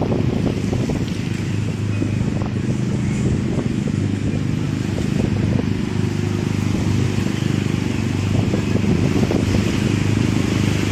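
Motorcycle engine running steadily at low revs, under a constant hiss.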